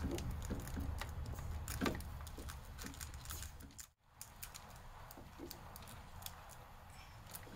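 Faint, scattered clicks and rustles of hands working electrical tape over wire connections on the back of a headlight, over a low hum. The sound drops out for an instant about four seconds in.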